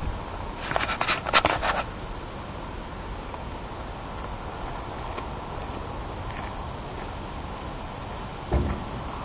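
Steady high-pitched chirring of crickets, with a few sharp clicks in the first two seconds and a short, low thud near the end.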